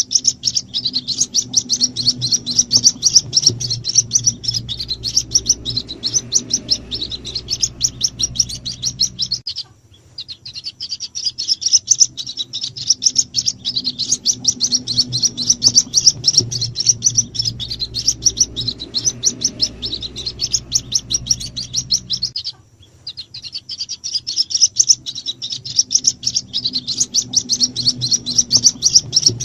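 White-breasted waterhen chicks peeping in a rapid, dense stream of high-pitched chirps, a lure call for drawing in the parent birds. The chirping breaks off briefly twice, about ten seconds in and again about twenty-two seconds in.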